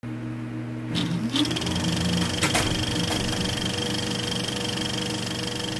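Intro sound effect of a film projector starting up: a whir that rises in pitch about a second in, with a few clicks, then a steady mechanical running whir.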